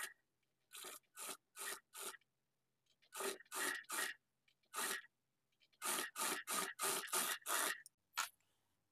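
Sewing machine stitching in about fifteen short spurts, each a fraction of a second, with brief silent gaps between them, running a second row of stitching over the sleeve seam to reinforce it.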